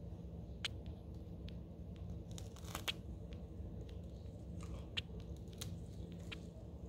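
Green bottle blue tarantula biting into a large hornworm: scattered soft crunching clicks, with a small cluster about two and a half seconds in, over a steady low hum.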